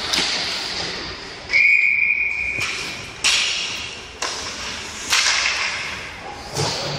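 Ice hockey referee's whistle blown once, a flat steady blast lasting about a second, stopping play. After it come several sharp cracks echoing in the rink.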